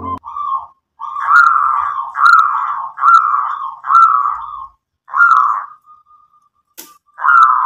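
Zebra dove (perkutut) cooing: a quick series of short, rolling coos at about one a second, then after a pause a single coo near the end. A sharp click sounds shortly before the last coo.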